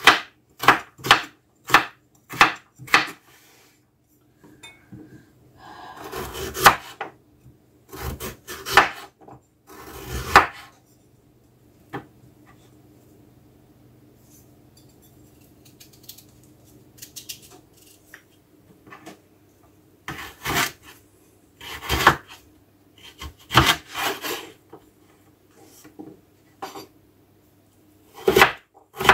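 Kitchen knife cutting and dicing carrot on a wooden cutting board: sharp knocks of the blade on the board in runs of quick strokes. There are three runs, with a quieter pause of several seconds in the middle.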